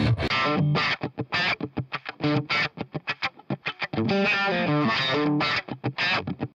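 Nu metal distorted electric guitar loop playing short, choppy stabs that cut off sharply with gaps between them. About four seconds in it switches to a few held notes, then turns choppy again near the end.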